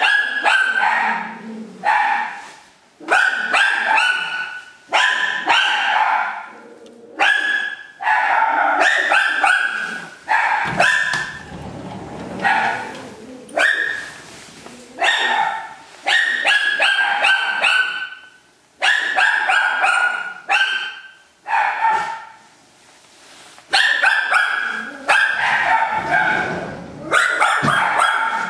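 A dog barking repeatedly, in quick volleys of several barks with short pauses between them.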